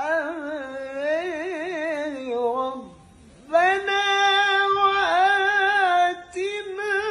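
A male qari chanting a Qur'an recitation (tilawah) solo in melodic style. An ornamented phrase with rapid wavering turns falls away, there is a breath pause about three seconds in, then a long, high held note.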